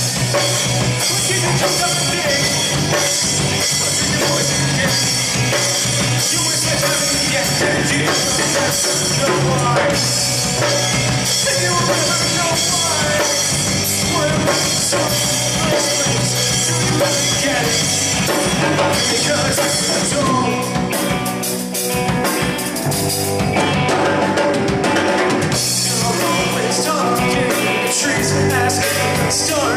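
Live rock band playing loudly, drum kit prominent, in a poor-quality recording. The band briefly drops back about two-thirds of the way through.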